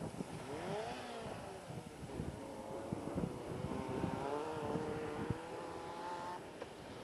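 Rally car engine at full throttle on a gravel special stage, heard from a distance: the pitch climbs sharply after a gear change about a second in, then holds and rises slowly before fading away near the end. Wind buffets the microphone throughout.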